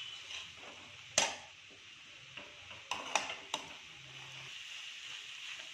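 Metal spatula stirring and scraping puffed rice in a metal kadai, over a faint steady hiss. The spatula clanks sharply on the pan about a second in, then three more times around three seconds in.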